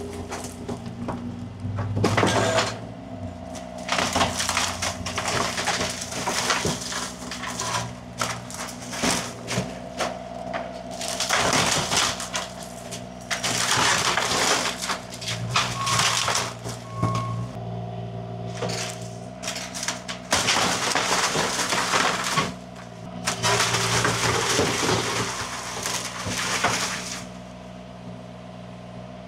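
A machine's engine running steadily under repeated bursts of wood cracking, splintering and crashing as a wooden shed is broken up and torn down.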